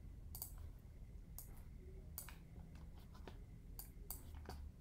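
Faint, scattered clicks of computer mouse and keyboard use, about half a dozen sharp ticks at irregular spacing, over a low steady hum.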